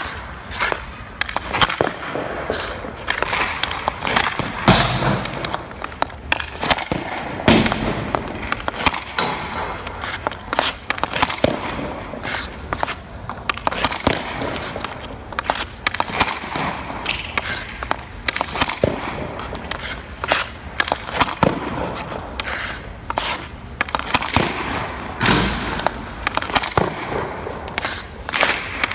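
Ice hockey shooting drill: sticks cracking against pucks and pucks smacking into a goalie's pads, glove and blocker, a steady run of sharp hits at irregular intervals, several a second at times.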